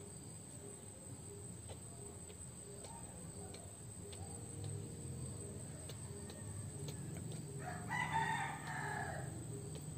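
A rooster crows once, faintly, about eight seconds in, a single drawn-out call whose pitch drops at the end, over a quiet low background hum.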